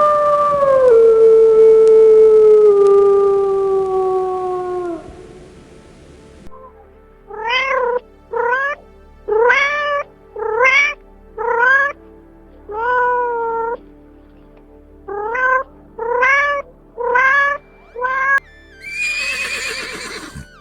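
Animal calls: a long, loud, falling howl-like cry, then a run of about eleven short cries that rise and fall in pitch like a cat's meows. A harsh, noisy burst comes near the end.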